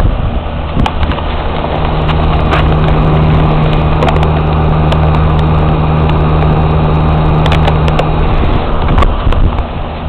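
1999 Carrier air conditioner outdoor condensing unit running: the condenser fan and compressor hum steadily. A deeper, louder hum swells from about two seconds in to near the end, with scattered sharp clicks throughout.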